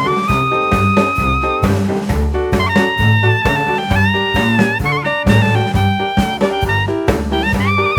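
Background jazz music: a horn melody over a steady bass and drum beat.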